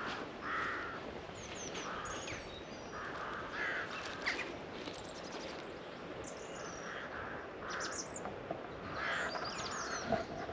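Crows cawing again and again in short hoarse calls, with smaller birds chirping higher up, over a steady outdoor background.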